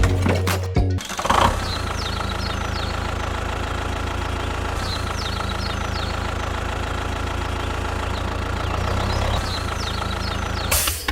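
A tractor engine idling steadily with an even low rumble for most of the stretch, starting about a second in and stopping just before the end. Short high chirps, like birdsong, sound over it.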